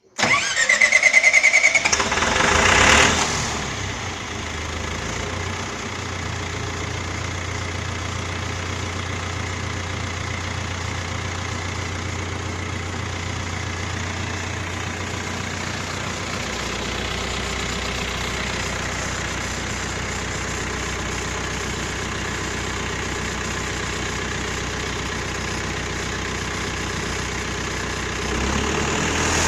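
Cummins diesel generator set's engine being started: a rising starter whine for about two seconds, the engine catching about three seconds in, then running steadily with a low hum whose pitch shifts about halfway through.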